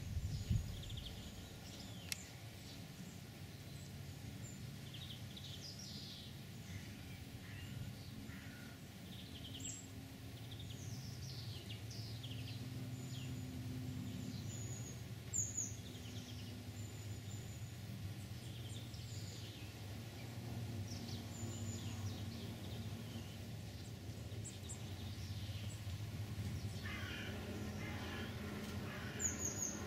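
Birds chirping and calling now and then in short notes, with a denser burst of calls near the end, over a low steady hum.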